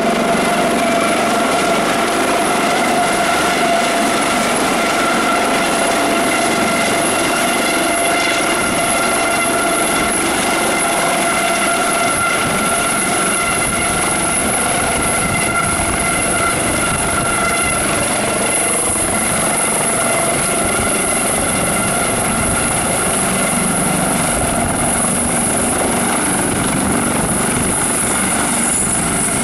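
Eurocopter Dauphin twin-turbine medical helicopter coming in to land close by: steady heavy rotor noise with the rushing of its downwash, a humming tone from the fenestron tail fan and a high turbine whine. Near the end, once it is down, the whine begins to drop in pitch.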